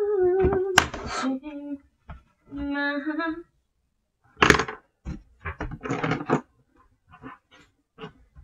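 A woman hums a held note, then another shorter one about two and a half seconds in. After that come scattered short rustles and taps as she handles a notebook's pages and a pen.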